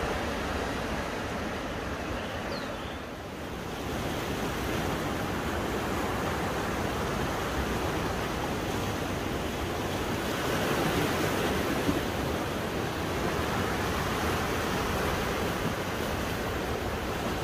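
Sea waves washing in and breaking around shoreline rocks, a steady rush that swells a little about two-thirds of the way through.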